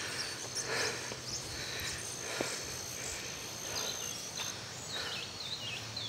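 Countryside ambience of crickets and birds: a thin, steady high insect trill with short bird chirps and whistles scattered through, over a soft background hiss.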